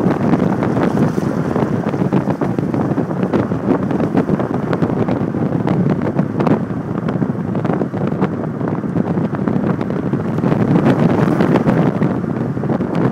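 Wind buffeting the microphone of a camera riding along on a moving bicycle, a steady rushing with frequent small knocks and rattles.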